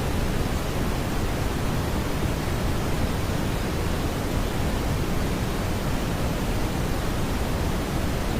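Steady smoothed brown noise: an even, unbroken hiss-like rumble weighted toward the low end, with no tones, clicks or changes.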